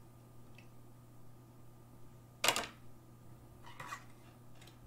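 Trading cards being handled at a desk: a sharp, brief click and rustle about two and a half seconds in, the loudest sound, then softer rustles near the end over a low steady hum.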